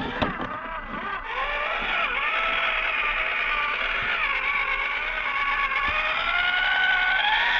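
Electric motor and gearbox of a 1/24-scale RC crawler whining, its pitch wavering up and down with the throttle and rising near the end. A couple of knocks come right at the start as the truck bumps down over rock.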